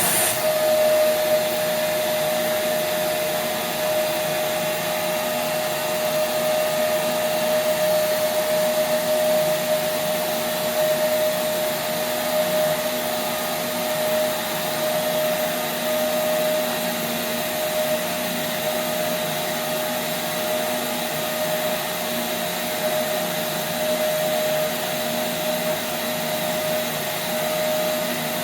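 Vitronics vacuum cleaner running with a plain carpet floor head pushed back and forth over carpet: a steady rush of air under a constant high whine.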